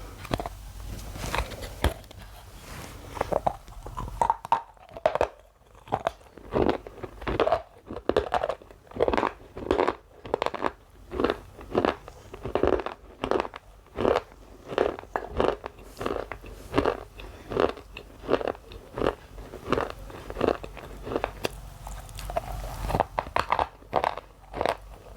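Close-miked crunching of thin white shale, bitten and chewed in repeated crisp crunches about one or two a second.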